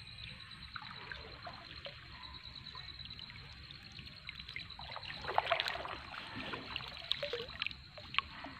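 Water trickling and splashing as a fishing net is gathered by hand in shallow water, with a louder spell of splashing about five seconds in.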